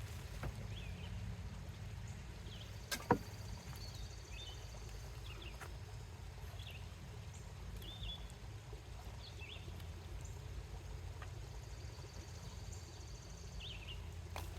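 Outdoor ambience: a steady low rumble, short high chirps about once a second, like a small bird calling, and two sharp clicks about three seconds in.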